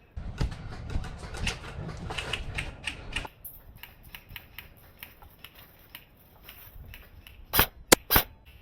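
Dense mechanical clicking and rattling for about three seconds, then a few scattered clicks, then two loud sharp cracks about half a second apart near the end.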